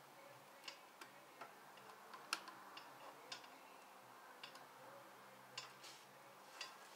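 Faint, irregular light clicks and taps of hand work on a motorcycle, parts and tools being handled, over near-silent room tone.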